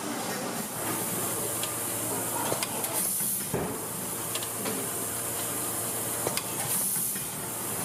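Noodle-factory packaging machinery running: a steady mechanical din with scattered sharp clicks and a few short bursts of hissing air, the clearest about three seconds in and again near the end.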